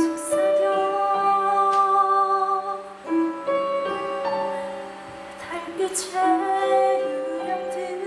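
A woman singing a slow melody in long held notes, accompanied by piano, in a live stage musical.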